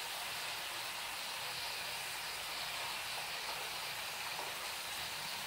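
Chicken pieces deep-frying in hot oil, with a steady sizzle.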